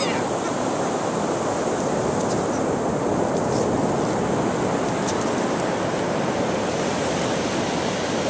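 Steady rush of ocean surf breaking on the beach, mixed with wind.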